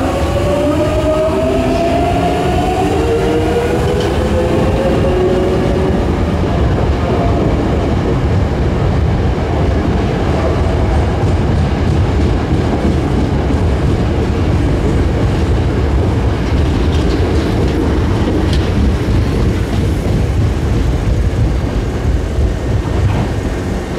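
Hankyu 8300 series electric train pulling out of the station. For the first few seconds its VVVF inverter traction motors make a rising whine. This gives way to a steady rumble and clatter of wheels over rail joints as the cars pass and move off, easing slightly near the end.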